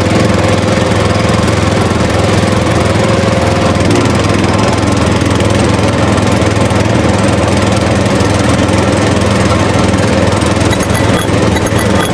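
A small motor running steadily with a low, even buzzing hum.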